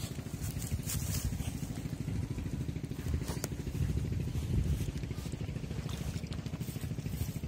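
A small engine running steadily, a low, fast, even chugging throughout, with now and then a faint scratch as dogs dig and snuffle into the earth and grass.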